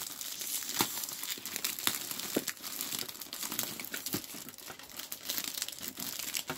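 Packaging wrap crinkling and rustling as hands try to pull it open, with many small sharp crackles.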